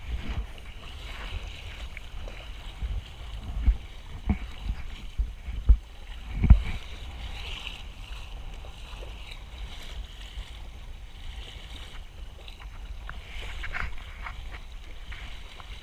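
Water hissing and sloshing along a sailing kayak's hull as it moves through choppy sea, with wind buffeting the microphone in low thumps that are strongest a few seconds in.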